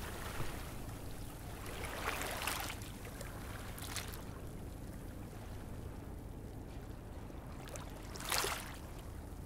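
Faint steady low rumble of ambient noise with a few brief swishing noises, the loudest about eight seconds in.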